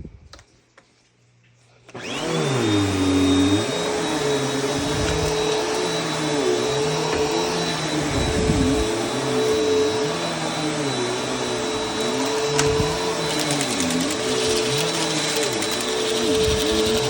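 Vacuum cleaner switched on about two seconds in and running steadily: a motor hum with a thin high whine above it.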